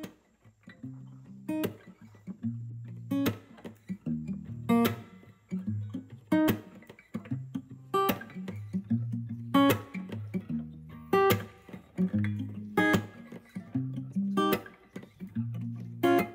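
Background music led by guitar, with plucked and strummed chords and a sharp accent about every second and a half.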